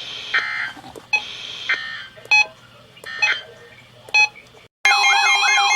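Emergency Alert System SAME data bursts: a series of short, raspy electronic bleeps in the first four seconds. About five seconds in, a loud steady alert tone cuts in with a repeating warble, announcing the next warning.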